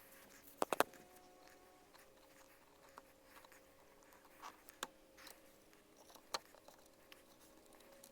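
Light knocks and clicks from wooden shutter parts being handled, a close pair about a second in and a few fainter taps later, over a faint steady hum.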